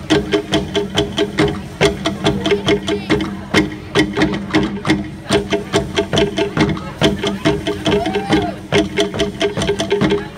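Tahitian drum music for a dance: fast, sharp drum strikes in a steady driving rhythm, several a second, over a sustained low accompaniment.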